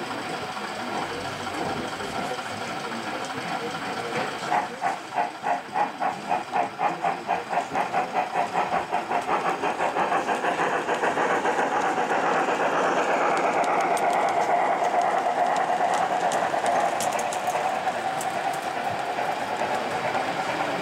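Gauge 1 model steam locomotive pulling away: its chuffs start at about two a second and quicken until they run together into a steady rush. A few light clicks follow near the end.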